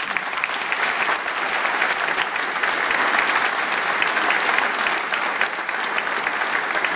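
Loud audience applause: many people clapping at once, steady throughout.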